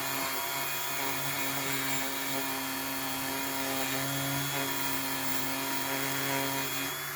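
A small handheld power tool's motor running steadily as it rubs off stripped paint left on a die-cast metal toy body; the motor cuts off near the end.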